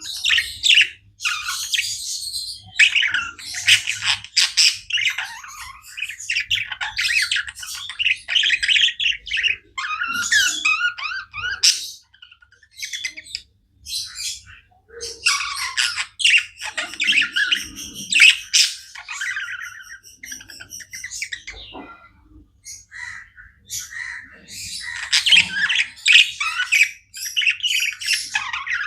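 Budgerigars chirping and chattering nonstop in rapid, overlapping calls, with a brief lull a little before halfway.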